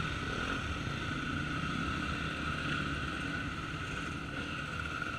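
Several motocross dirt bike engines idling and running slowly together, a steady drone.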